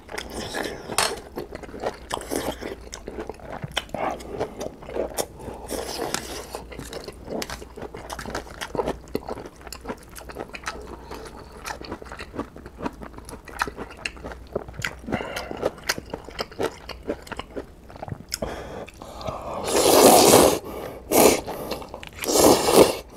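Close-miked chewing of instant ramen noodles and crunchy kimchi, with many small wet crunches and bites. Near the end come two loud, long slurps as mouthfuls of noodles are sucked in.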